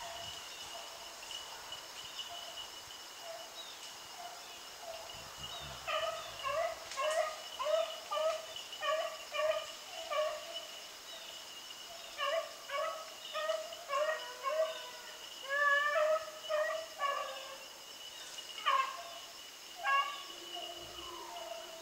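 Beagles baying on the run, a string of short repeated bawls starting about six seconds in and going on until near the end, over a steady high-pitched insect drone.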